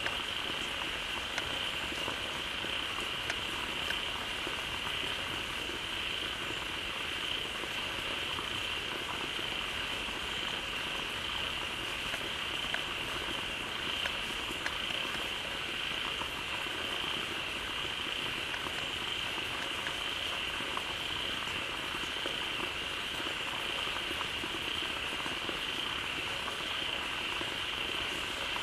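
A dense chorus of many frogs calling together at a pond, steady and unbroken, with a constant high-pitched hum riding above it.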